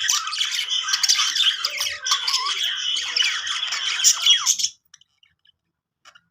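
Budgerigars chattering and warbling, a dense run of quick chirps and squawks that stops suddenly about three-quarters of the way through, followed by a faint single chirp near the end.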